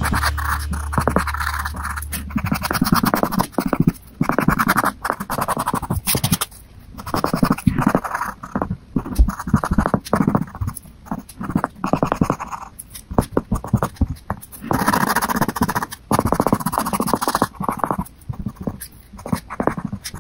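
Colored pencil scratching on drawing paper in quick, irregular shading strokes with short pauses between runs. Background music fades out in the first second or so.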